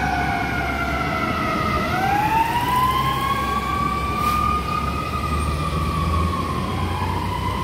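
Fire truck siren wailing as the apparatus drives away: its pitch falls for about two seconds, then winds back up and holds high, starting to climb again near the end. A heavy truck engine rumbles underneath.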